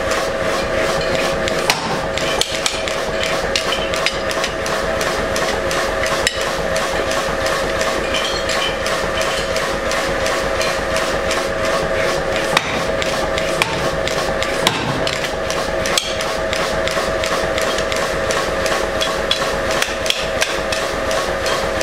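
Hand hammer striking a hot steel leaf blank held with tongs on a forming block, shaping its veins: sharp metal blows at irregular intervals over a steady two-tone workshop machine hum.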